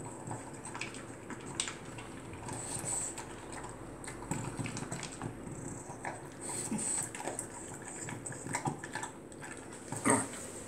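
French bulldog eating kibble from a metal bowl: irregular crunching and chewing, with a louder knock near the end.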